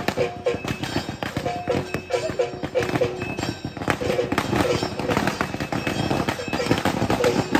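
Rapid crackling of firecrackers over rhythmic live drumming, with crowd voices in the mix.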